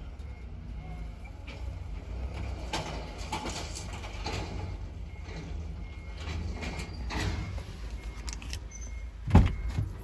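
Low steady rumble of a vehicle with scattered knocks and rattles, and one loud thump near the end.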